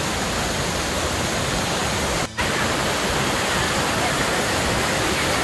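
Steady rushing of a small river cascade pouring over boulders into a rock pool. The sound cuts out for a moment a little after two seconds in.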